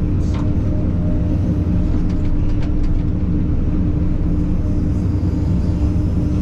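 Takeuchi TB2150 excavator's diesel engine running steadily while digging, with a few faint clicks over the drone.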